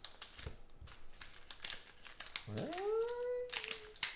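Foil trading-card pack crackling as hands peel it open. About two and a half seconds in, a single pitched call rises steeply and then holds for about a second.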